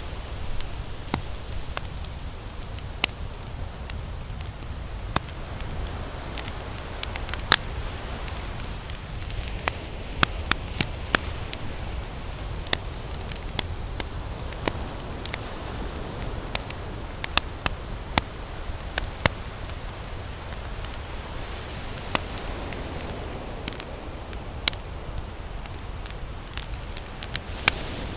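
Wood campfire crackling, with irregular sharp pops and snaps of varying loudness over a steady low rumble.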